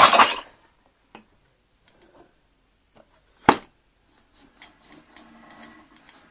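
Junk being shifted by hand: a loud scrape at the start, one sharp knock about three and a half seconds in, then faint rubbing and rustling.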